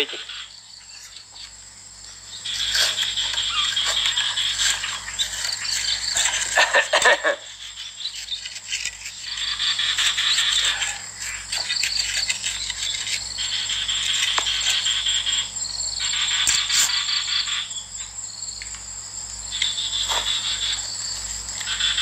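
Insects buzzing in pulsing bursts of one to three seconds that start and stop over and over, over a steady high whine. A short cluster of clicks about seven seconds in.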